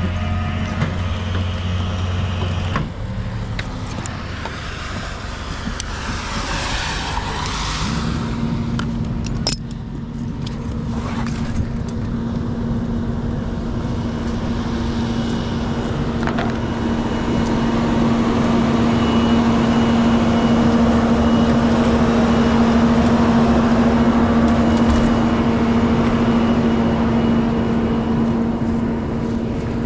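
Rollback tow truck running its hydraulic winch. A steady droning hum sets in about eight seconds in and grows louder midway, as the winch takes up the cable to a car in a ditch.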